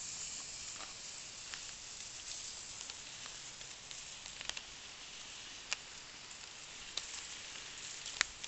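Foil parcel of duck and potatoes sizzling on a hot hearth stone beside a wood fire: a steady hiss with four sharp pops, the loudest near the end.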